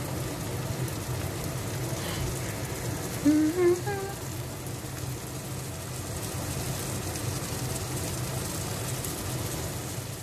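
Egg omelette with tomato and cucumber sizzling steadily in a frying pan, over a low steady hum. About three seconds in, a short rising vocal sound stands out above the sizzle.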